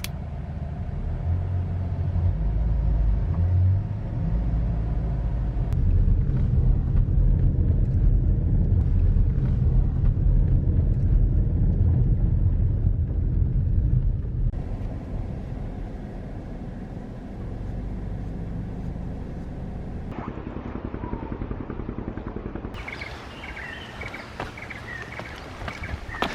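Low rumble of a moving vehicle, loudest in the first half and quieter after a sudden change about halfway through.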